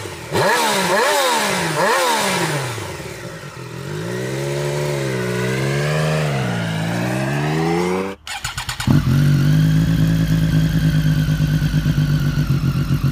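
Triumph Street Triple RS inline three-cylinder engine through an aftermarket exhaust: three quick throttle blips, then the note rises and falls as the bike pulls away. After a cut about two-thirds of the way in, a Street Triple RS with an SC Project exhaust idles steadily with a lumpy pulse.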